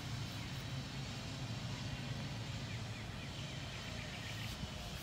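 Steady low outdoor background rumble, with a few faint bird chirps over it.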